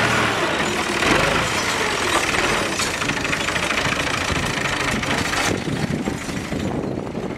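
Al Ghazi 65 HP tractor's diesel engine running under load while it pulls a disc plough, passing close by and then drawing away. The engine note is steady and loud at first, turns rougher, and thins out in the last couple of seconds.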